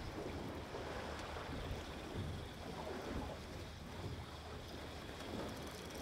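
Steady background on a fishing boat at sea: a low hum with wind and water noise, no single event standing out.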